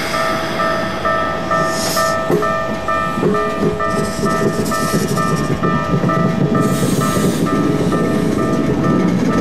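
Level-crossing warning bell ringing, a two-note electronic clang repeating about twice a second, over the low rumble of a Keikyu train running past.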